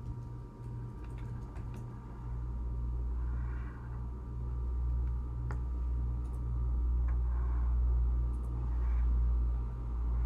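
Crayola felt-tip marker drawn across paper in a few short, faint scratchy strokes, over a steady low hum that grows louder about two seconds in.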